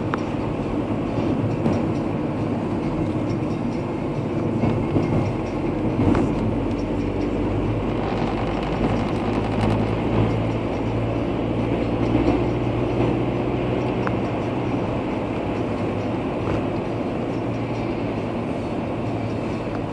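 Steady road noise inside a moving car: tyre rumble and a low engine hum, with a few faint clicks.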